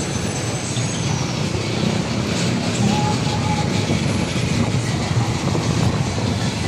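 Steady street traffic noise: cars, vans and a truck running along a city road, a continuous rumble with no single event standing out.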